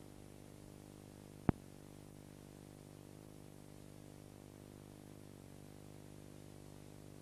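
Steady low electrical hum with a stack of even overtones from a VHS tape's playback audio at the blank start of the tape, with one sharp click about a second and a half in.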